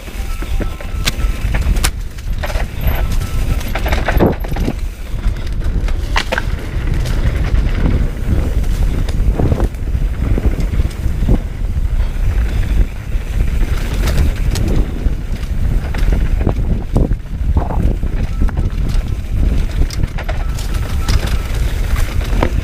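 Mountain bike descending a rough dirt trail at speed, heard from the rider's point-of-view camera: a constant rumble of tyres and wind, with frequent rattles and knocks from the bike as it goes over bumps.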